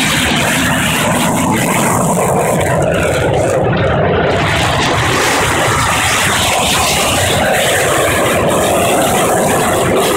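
Formation of F-5 jet fighters flying low past, their jet engines making a loud, steady rushing noise.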